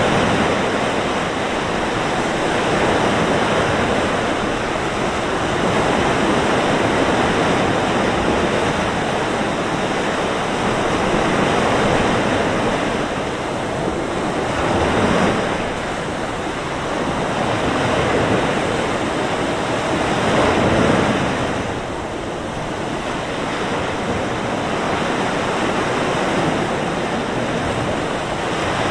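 Mediterranean surf breaking and washing up a beach on a windy day: a continuous rush that rises and falls with each wave, surging about halfway through and again about three quarters in, with wind in the mix.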